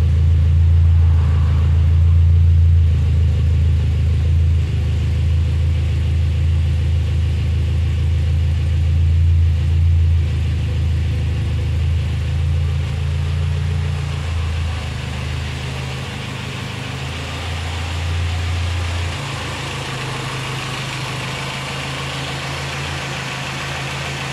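Lancia Fulvia 1401 Group 4-tuned narrow-angle V4 idling steadily when warm. The deep exhaust drone at the tailpipe dominates most of it. Near the end it gives way to a lighter intake hiss and engine clatter from the carburettors in the engine bay.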